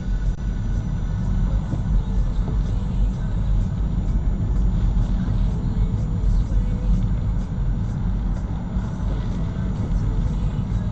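Steady low rumble of road and engine noise inside a moving car's cabin, as picked up by a dashcam.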